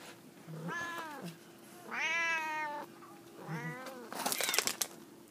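An F2 jungle cat hybrid meows three times, the middle call the longest and loudest, followed by a brief burst of scratchy rustling.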